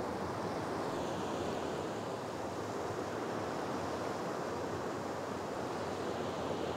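Sea surf washing steadily on the shore, an even rushing noise.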